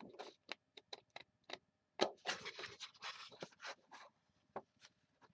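Paper and cardstock being handled at a craft table: a run of quick, irregular clicks and taps, with a short stretch of paper rustling about two seconds in.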